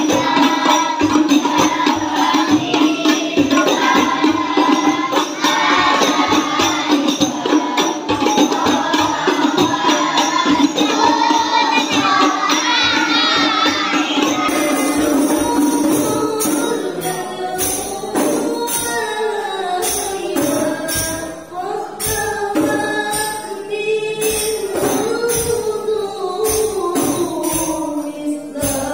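Children singing an Islamic devotional song together over a microphone, accompanied by rebana frame drums beaten in a steady rhythm. The separate drum strokes stand out more clearly from about halfway through.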